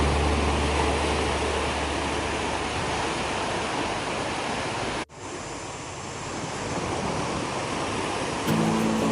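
Sea waves washing on a beach: a steady rush of surf that cuts out abruptly about five seconds in and comes straight back.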